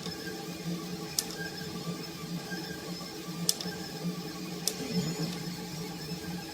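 Radik delta 3D printer's stepper motors humming steadily as the print head moves, the pitch gliding briefly when the moves change speed, with three sharp ticks.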